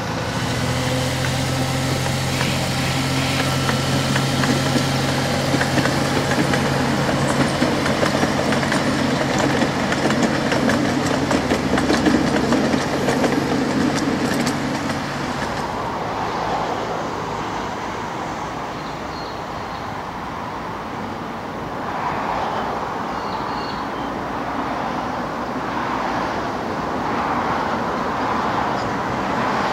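Miniature train running past on 7¼-inch gauge track: a steady low hum from the locomotive under wheel-on-rail noise. About halfway through the sound changes abruptly to a quieter, uneven rumble as another small train approaches.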